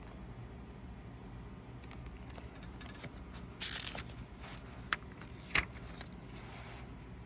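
Handling of a metal date stamper and notebook paper: a brief papery rustle a little past halfway, then two sharp clicks about a second apart, over a low steady hum.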